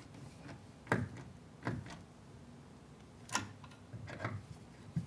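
Hand screwdriver tightening the screws of a storm door closer's metal mounting bracket: about four sharp metal clicks at uneven spacing as the bit turns in the screw heads.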